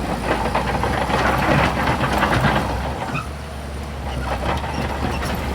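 Heavy diesel earthmoving machinery running with a steady low drone, over a dense rattling and grinding of stone and steel that is loudest about two seconds in.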